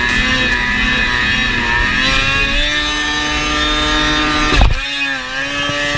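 Snowmobile engine running at high revs while skimming across water, its pitch climbing about two seconds in and holding high. A sharp thump comes a little past halfway, after which the engine pitch dips and then rises again.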